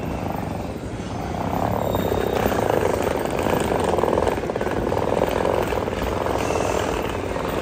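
Train running at a railway platform: a steady mechanical noise with a fast pulsing that swells about a second in.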